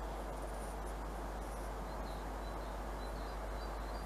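Small birds chirping, short high calls repeated every so often, over a steady outdoor background hiss with a low rumble.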